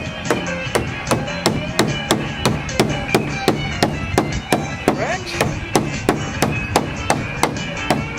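Music with a fast, steady percussive beat of about four or five strikes a second over held chords.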